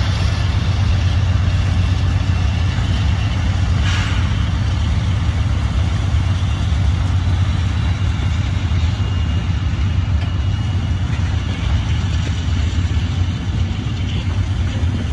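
Freight train of covered hopper cars rolling past as it departs the yard: a steady low rumble of steel wheels on rail, with a brief sharper metallic sound about four seconds in and a faint thin squeal later on.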